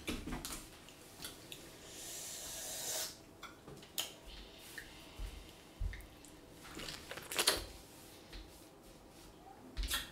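Small clicks, knocks and rustles of food and containers being handled on a table, with a hiss lasting about a second about two seconds in and a sharper click about seven and a half seconds in.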